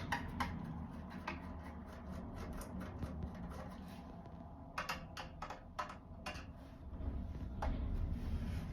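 Small scattered clicks and taps of a screwdriver undoing the cover screws of a DVR, with a run of sharper clicks about five to six seconds in.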